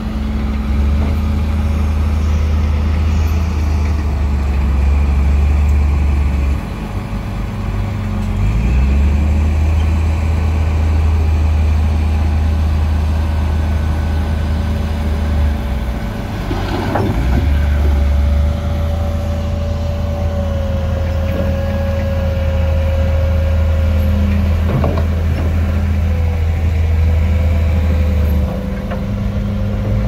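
A heavy earthmoving machine's diesel engine runs loud and steady, its drone shifting in level a few times as the load changes, with a steady whine over it. Two short metallic clanks come about halfway through and again later.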